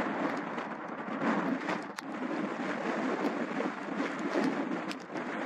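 Boeing 767-200 freighter landing: a steady rush of its jet engines as the main wheels touch down on a wet runway and throw spray. A few sharp clicks, one stronger about two seconds in.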